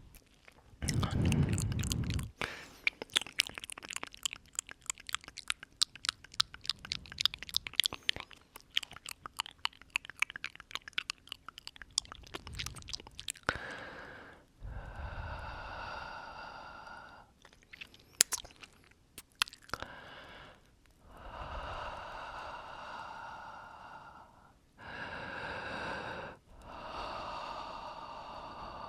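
Close-miked ASMR mouth sounds: rapid wet clicks and smacks of lips and tongue. About halfway through they give way to slow, airy breaths blown into the microphone, each two to three seconds long, with a few clicks between them.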